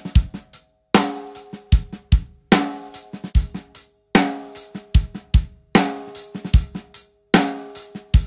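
Drum kit playing a repeating one-bar groove, with kick and cymbal at the start of each bar about every second and a half, to demonstrate a snare fitted with an Evans G1 single-ply head. The coated G1 is played first, then after a short break about four seconds in, the clear G1, whose snare strokes ring on. The clear head is more ringy with a little more attack; the coated one sounds warmer.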